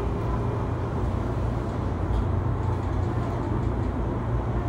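Running noise of a JR East E233-3000 series electric train heard from inside a motor car: a steady low rumble of wheels on rail with a faint steady whine, holding an even speed.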